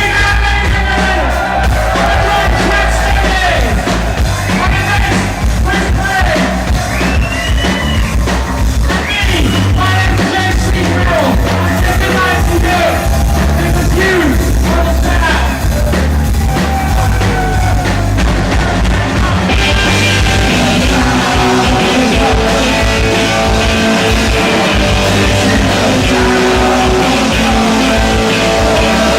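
Punk rock band playing live, with a singer over a steady beat; about twenty seconds in the sound turns denser and brighter.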